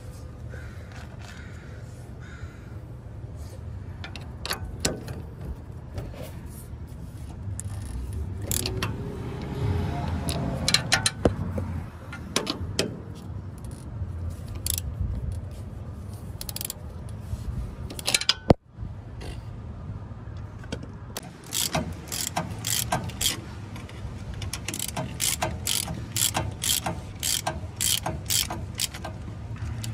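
Ratcheting wrench clicking in quick, even runs as it turns a sway bar end link nut, mostly in the second half. Before that come scattered clinks and scrapes of tools handled against the suspension.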